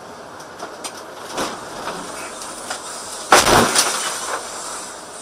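Vehicle collision on a snowy road: a few light knocks, then a loud crashing impact about three seconds in as a snow-covered car is struck, with chunks of snow and ice flying and knocking against the windshield.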